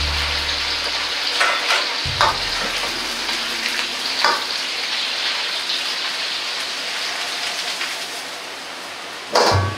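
Sauce sizzling and bubbling hard in a wok over a gas flame, with a metal wok ladle scraping and clinking against the pan a few times in the first half. One loud metal clank comes near the end.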